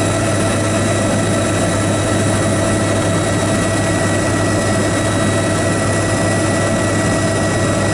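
Helicopter in flight heard from inside the cabin: a steady drone of engine and rotor with a constant thin high whine, unchanging throughout.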